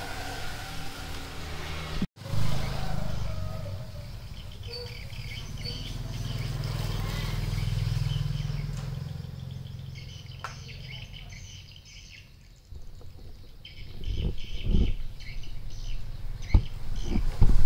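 Small birds chirping in the background over a low rumble that swells and fades around the middle, like a passing vehicle. A few sharp clicks come near the end.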